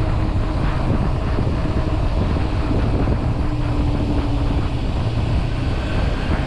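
Wind rushing over the microphone of a camera on a moving bicycle: a loud, steady, dense rumble, with a faint hum for about a second around the middle.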